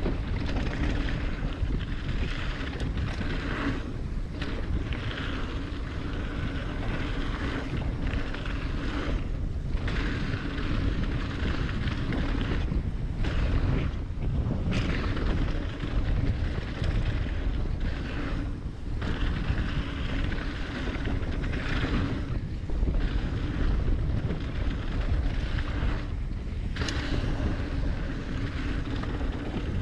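Wind rushing over the camera microphone and the mountain bike's tyres rolling over a dirt trail during a fast downhill run, with the bike rattling over bumps and a couple of sharp knocks, one about halfway through and one near the end.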